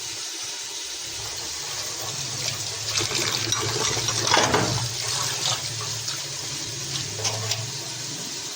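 Beef pieces frying and sizzling in ghee and masala while being browned, with a spoon scraping and stirring through them now and then; the sizzle swells briefly about four seconds in.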